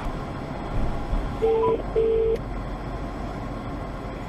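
Steady low rumble of a moving car heard from inside the cabin, with two short beeps at the same middle pitch about a second and a half in, each under half a second.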